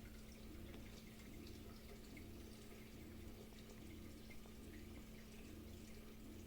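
Faint trickling and dripping of water in a reef aquarium's overflow and sump system, with a steady hum underneath.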